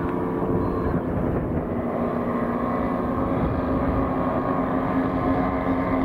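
Engines of radio-controlled scale model warbirds running in flight overhead: a steady drone made of several engine tones.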